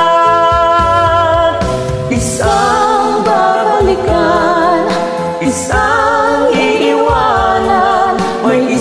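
Male and female voices singing a Tagalog ballad duet with vibrato over a karaoke backing track. A long held note at the start breaks off, and a new sung line begins about two seconds in.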